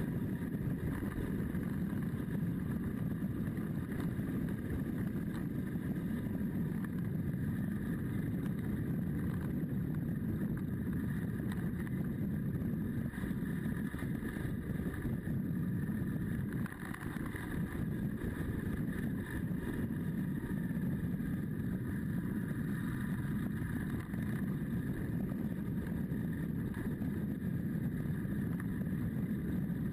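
Adventure motorcycle's engine running under way, with steady wind rush on the camera microphone; the level dips briefly about halfway through.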